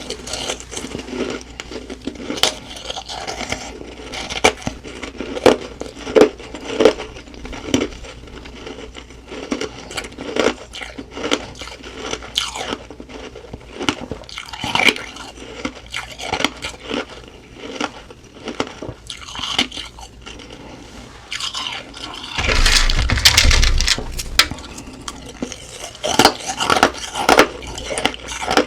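Humidifier frost ice being bitten and chewed, a run of irregular crisp crunches and crackles. There is a louder, denser stretch of crunching about three quarters of the way through.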